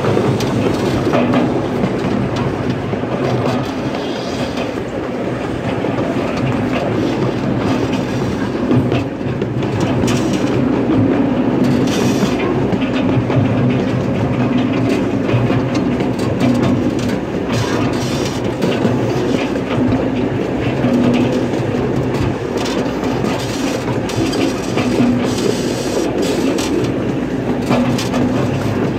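Ride-on miniature railroad train running steadily, heard from the passenger cars: a steady engine drone with the wheels clicking irregularly over the rail joints.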